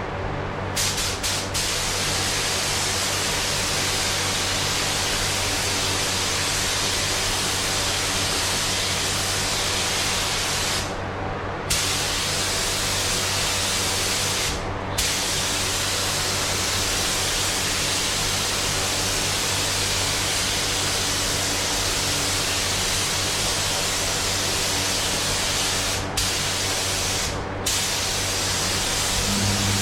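Automotive paint spray gun hissing steadily as a grey base coat is sprayed, breaking off briefly a few times between passes, over a steady low hum.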